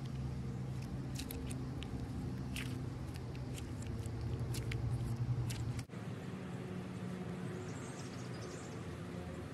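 Hands squeezing and poking clear green slime, making scattered sticky clicks and pops over a steady low hum. About six seconds in the sound cuts briefly, and then comes softer slime stretching and folding with a faint high crackle.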